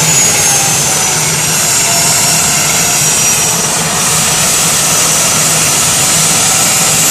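Homemade turbojet engine running during its first start: a loud, steady jet rush with a high whine whose pitch sags slightly over the first few seconds, then holds.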